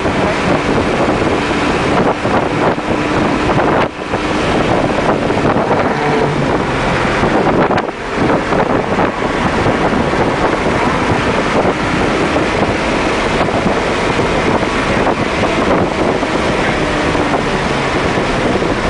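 Engine, wind and road noise inside a car's cabin while it is driven hard around a racetrack, loud and steady, with a brief dip in level about four seconds in and again about eight seconds in.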